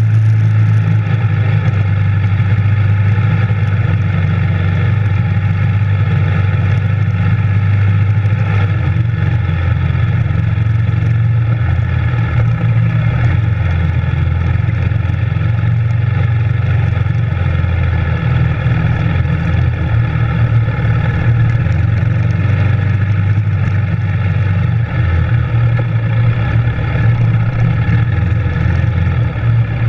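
Yamaha Raptor 700R sport quad's single-cylinder four-stroke engine running under way at a fairly steady speed, wavering a little in pitch in the second half.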